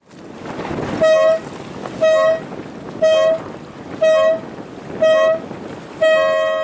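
Race committee horn sounding five short blasts a second apart, then a longer blast about six seconds in: the final-seconds countdown to a sailboat race start, the long blast marking the start. Wind rushes on the microphone underneath.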